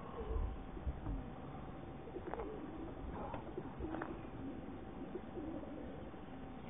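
Racing pigeons cooing over and over in the crates of a pigeon transport truck, with a couple of low rumbles near the start.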